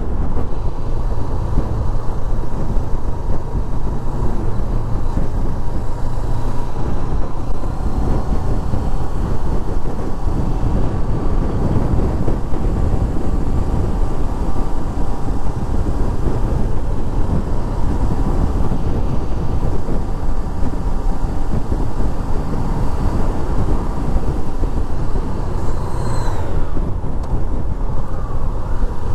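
Steady wind rush on the camera microphone from a sport motorcycle riding at road speed, with the engine and tyre noise underneath.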